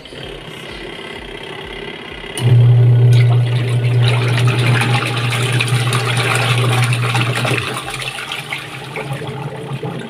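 The wash motor of a Sharp ESW500 single-tub washing machine starts about two seconds in with a strong steady hum. It drives the pulsator through its belt, and the water in the part-filled tub churns, easing slightly near the end.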